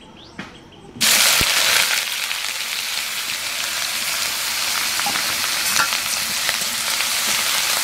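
Chopped onion dropped into hot mustard oil in an aluminium kadai, starting to sizzle loudly about a second in and then frying with a steady sizzle.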